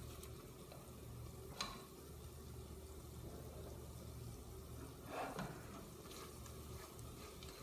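Faint sizzle of chopped onions and spices frying in oil in a pot, with a light click of a utensil about a second and a half in and a brief scrape about five seconds in.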